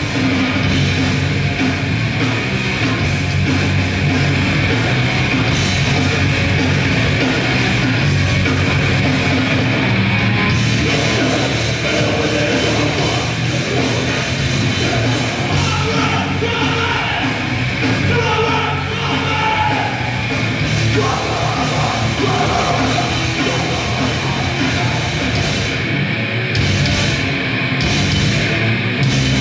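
Grindcore band playing live, loud and dense, with yelled vocals.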